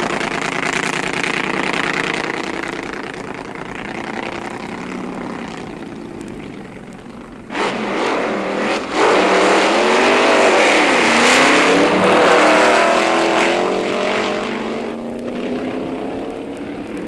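Drag racing cars' engines running at full throttle. A second, louder car comes in suddenly about seven and a half seconds in, its engine note rising and falling, and then fades away near the end.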